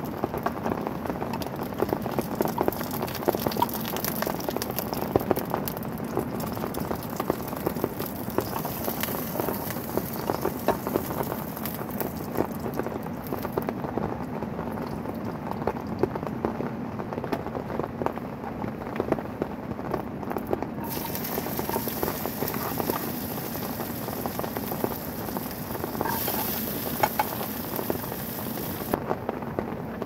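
Rain pattering steadily on the tent, with oil sizzling in a small frying pan as an egg fries. The high hiss drops away for several seconds in the middle and again near the end.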